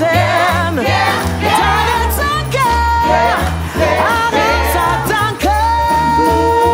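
Gospel choir singing an upbeat song over a bass line, with wordless vocal runs; a little over five seconds in a singer holds one long high note.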